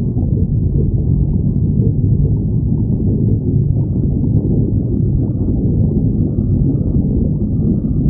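Stomach growling: a continuous, muffled low rumble without pauses.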